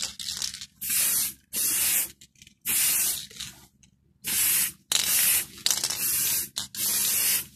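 Aerosol spray can of gloss black paint hissing in about seven short bursts, each around half a second long, as a coat is laid down in quick passes.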